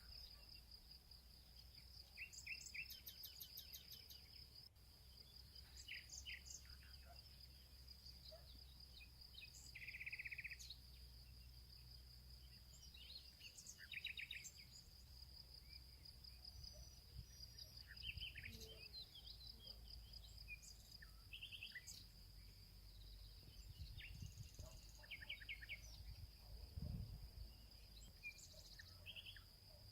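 Faint background of short bird chirps scattered throughout, over a steady high-pitched insect-like trill and a low hum.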